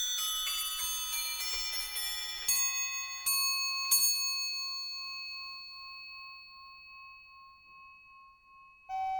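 Bell-like chimes ringing in overlapping notes, then a few last strikes, the final note ringing on and slowly dying away over about five seconds.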